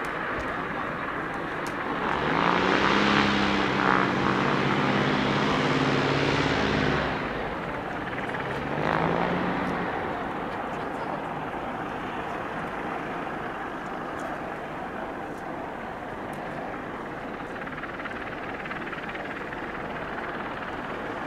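Piper PA-46 light aircraft's engine running as it taxis. It swells louder for about five seconds a couple of seconds in, rises briefly in pitch about nine seconds in, then settles to a steady running sound.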